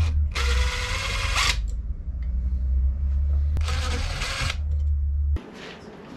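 Power driver with a 5/32-inch hex bit run in two bursts of about a second each, backing hex screws out of a Sherwood raw water pump's worn backing plate. A steady low hum runs underneath and cuts off suddenly near the end.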